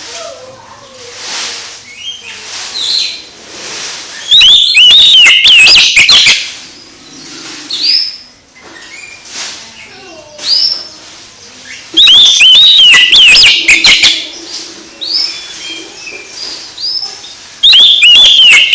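Oriental magpie-robin singing: three loud bursts of rapid, varied whistles and chirps, with quieter calls between them.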